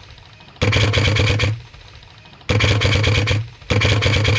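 Electric airsoft gun firing three full-auto bursts, each about a second long: a rapid, even rattle of shots over the whir of its motor and gearbox.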